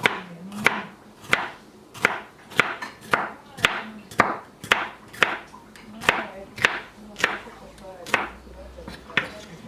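Knife chopping vegetables into strips on a cutting board: even strokes a little under two a second, stopping about eight seconds in.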